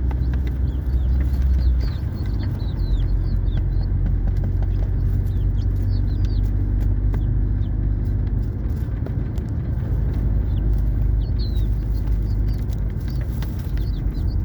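Young chickens peeping, many short falling chirps scattered throughout, over a loud steady low rumble of a running vehicle.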